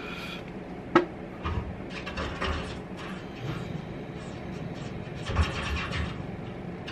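A trapped blackbird scratching and fluttering inside a fireplace chimney: irregular scratchy rustles and soft low thuds, with one sharp knock about a second in.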